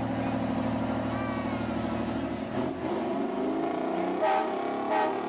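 Heavy truck engine running steadily as the truck passes, fading out about two and a half seconds in. Near the end come two short, loud sounds about a second apart.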